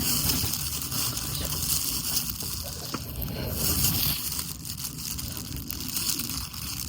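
Steady outdoor noise of rain and wind: a continuous hiss with a low, uneven rumble and a few faint ticks.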